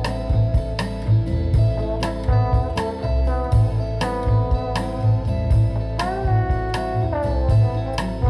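Instrumental music with sustained melody notes over a heavy bass beat, about two bass hits a second, played through a pair of Radiotehnika 35AC-1 loudspeakers.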